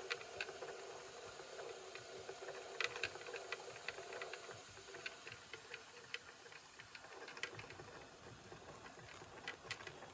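Märklin 16051 two-cylinder compound model steam engine running quietly, with a faint steam hiss and irregular light ticking and clicking. A faint hum under it dies away about seven seconds in.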